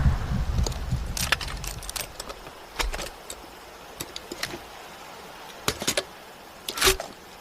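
The low rumble of a Milkor MGL Mk 1L grenade launcher shot dies away over the first two seconds. It is followed by a series of sharp metallic clicks and clanks from the launcher's mechanism, spaced irregularly, with a double click just before six seconds and the loudest clank about seven seconds in.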